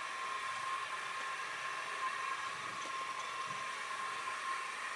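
Milling machine running steadily with a thin high whine as a carbide bit bores into the hardened steel of a knife blade.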